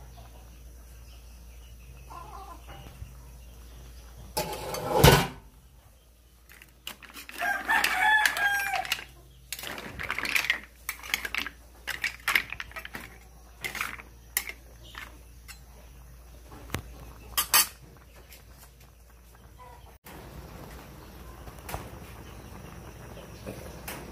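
A loud clatter about five seconds in, then a rooster crows once, followed by scattered clinks and knocks of kitchenware.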